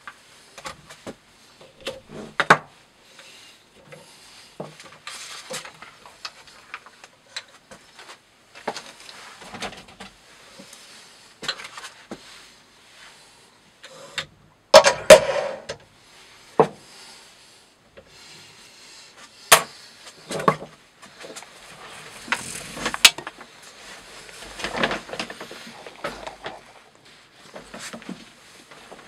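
Scattered knocks, clicks and rubbing from hands working a bench-mounted rope-cutting test rig: emptying the tray of cut rope pieces, feeding a new length of rope through the guide and setting the heavy weight disc on the knife holder. The loudest knocks come about halfway through and again a few seconds later.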